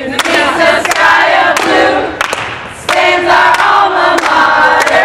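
A group of young women singing their university's alma mater together, loudly and partly shouted, with sharp hand claps here and there and a brief break near the middle.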